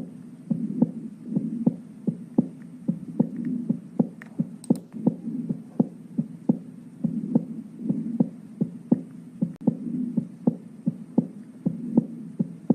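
Recorded heart sounds: a steady galloping rhythm of short low thuds with an extra third heart sound (S3, ventricular gallop) in early diastole. It is the sign of blood rushing into the ventricle faster than it empties, normal in athletes and under 40, abnormal over 40. A low hum runs beneath.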